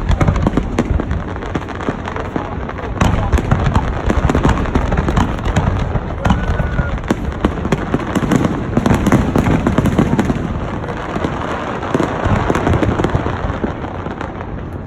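Fireworks display: a rapid, continuous series of bangs and crackles from shells bursting overhead, with crowd voices underneath.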